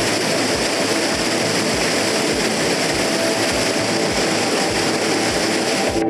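Water rushing down a small waterfall cascade over granite rocks: a loud, steady rush. A faint low thump about twice a second runs underneath.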